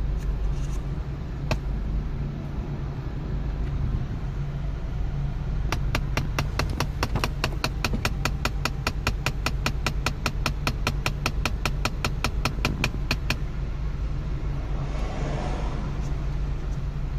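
Rapid, even clicking, about five clicks a second for roughly seven and a half seconds, from a Mk7 Volkswagen GTI after its air conditioning is switched off, over the steady hum of the running car. A short hiss follows near the end.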